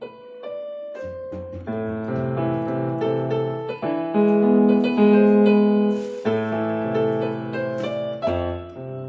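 Piano voice of a Yamaha EW300 portable keyboard playing a slow melody over held chords, the notes changing every half second or so and swelling loudest in the middle.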